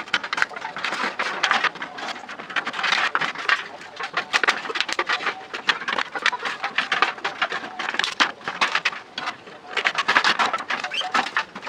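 Stiff, shiny plastic sheet crinkling and crackling as it is folded and pressed by hand, in a dense run of small crackles, with scissors cutting into it near the end.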